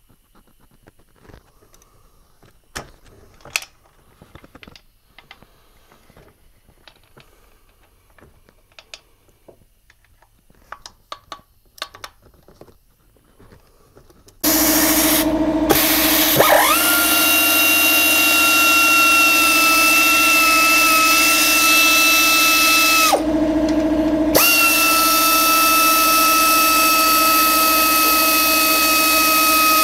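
Faint clicks and taps of hand tools, then about halfway through a pneumatic (air) ratchet starts up loudly: a hiss of air with a steady high whine. It runs about six seconds, stops for about a second, then runs again as it spins out the intake manifold bolts.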